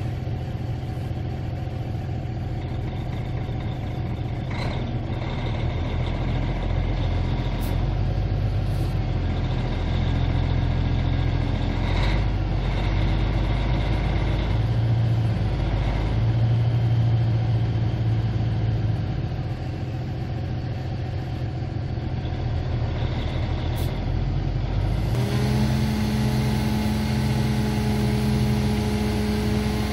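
Caterpillar 3406B inline-six turbo diesel of a Freightliner dump truck running steadily, its engine speed shifting up and down through the middle. About 25 s in, a steady whine starts suddenly on top of the engine.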